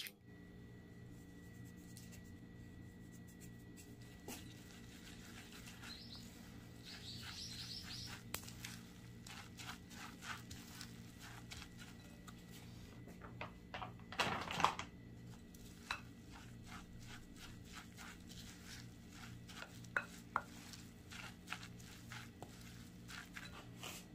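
Wooden spatula knocking and scraping against a glass mixing bowl as a wet mix of anchovies, chopped green pepper and egg white is worked vigorously: faint irregular taps throughout, with a louder cluster of clatter about fourteen seconds in. A low steady hum runs underneath.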